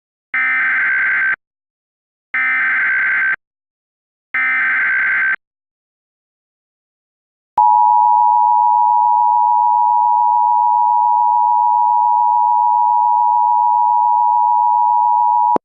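Emergency Alert System tones: three one-second bursts of the SAME digital header data tones, then, after a two-second gap, the steady two-tone EAS attention signal (853 and 960 Hz) held for about eight seconds. They announce a flash flood warning.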